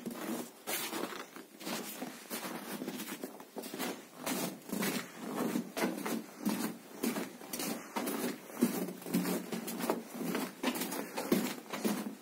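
Footsteps crunching through snow and debris on a floor, an uneven run of short crunches.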